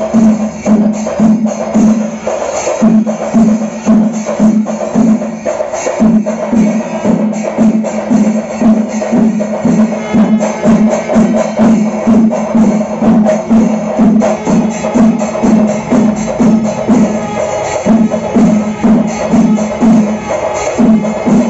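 Rhythmic percussion music: drums struck in a fast, steady beat with sharp clashes over them, loud and unbroken.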